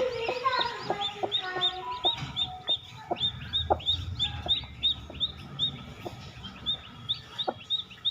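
Chicks peeping in quick, repeated high notes, about four or five a second, with a hen's short low clucks scattered among them.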